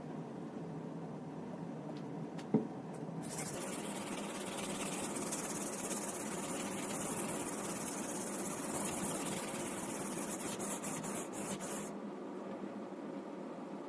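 Boning knife blade scraping back and forth across a coarse oil sharpening stone, a steady gritty rasp that turns harsher and hissier from about three seconds in until near the end. A single sharp click comes early.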